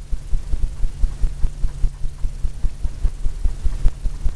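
A paintbrush tapped repeatedly against a stretched canvas on an easel, a fast run of dull thumps at about four or five a second, dabbing in oil-paint palm fronds. A steady low hum sits underneath.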